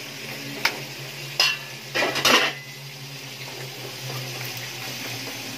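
Metal spatula scraping and clanking against a wok as pieces of chicken are stirred, with several strokes in the first half. A light sizzle and a steady low hum run underneath.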